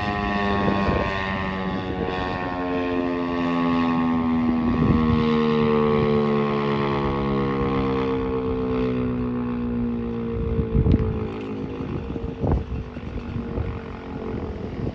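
P-15 outdoor warning siren sounding several tones at once, sliding slowly and steadily down in pitch as it winds down, getting quieter near the end. A few short knocks come through about five seconds in and again around eleven and twelve seconds.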